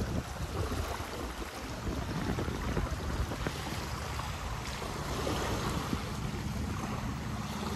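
Small wind-driven waves lapping and splashing against a grassy lakeshore. Wind is buffeting the microphone, with uneven surges and a low rumble.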